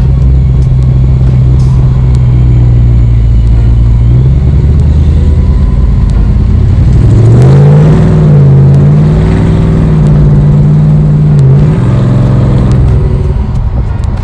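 Loud engine drone of a 1967 Dodge Coronet 500, heard from inside the cabin while driving. The note climbs in pitch about seven seconds in as the car accelerates, wavers, then settles back down near the end.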